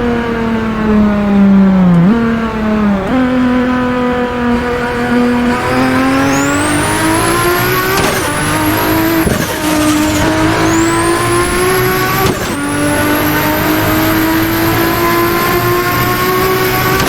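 Nissan Skyline R32 GT-R's RB26 straight-six engine pulling hard. Its pitch climbs through the gears and drops sharply at each of several gearshifts. A high turbo whistle rises as the turbo spools and cuts off at each shift.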